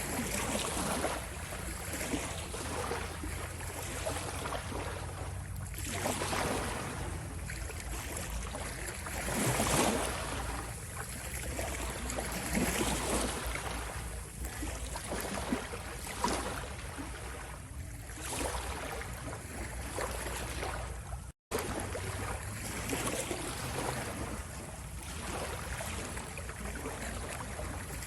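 Ocean waves washing in, a continuous rush of water that swells and eases every few seconds over a steady low rumble. The sound cuts out for an instant about three-quarters of the way through.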